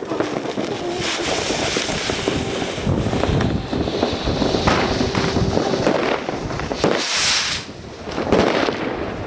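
New Year's Eve fireworks: rockets and firecrackers going off in a continuous crackle of bangs, with a short rushing hiss about seven seconds in.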